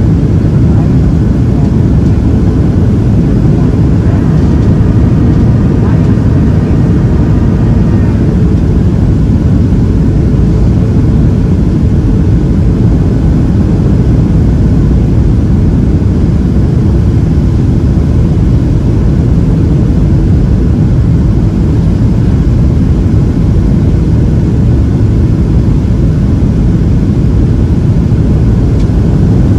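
Steady, loud cabin noise inside a Boeing 737-700 airliner: the rush of its CFM56 jet engines and the airflow. A faint set of steady higher tones comes in about four seconds in and lasts about four seconds.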